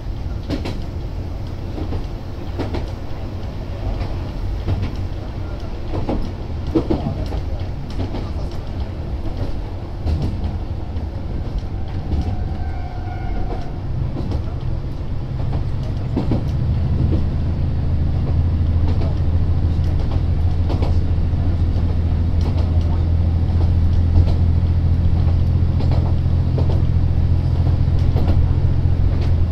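Isumi Railway 200-series railbus's underfloor diesel engine idling while the car stands at a station, a steady low drone with scattered knocks. About halfway through the drone grows louder and steadier. A short higher tone sounds about twelve seconds in.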